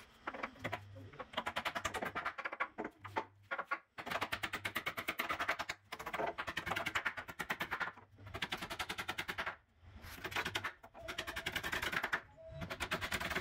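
Hammer driving nails into a plywood board on a bed-box frame, in fast runs of taps lasting a second or two each with short pauses between.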